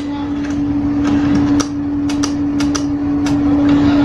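ATM machine working on a freshly inserted card: a steady hum with irregular sharp clicks and ticks from its mechanism.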